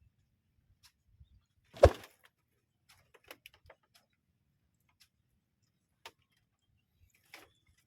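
A single sharp knock with a deep thud about two seconds in, followed by a few faint, scattered clicks and ticks.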